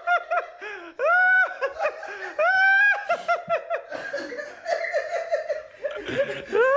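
High-pitched laughter in repeating cycles: a drawn-out rising cry followed by a run of quick 'ha-ha-ha' bursts, heard about three times, then choppier laughing bursts toward the end.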